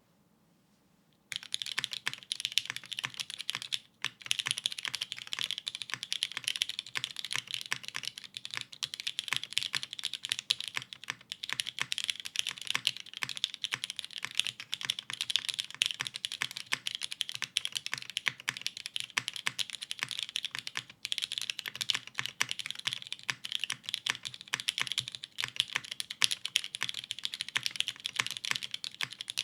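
Fast continuous typing on a mechanical keyboard with lubed Cherry MX Black linear switches on a polycarbonate plate, top-mounted with no foam, under GMK keycaps. The typing starts about a second and a half in after near silence, a dense stream of keystrokes with two brief pauses.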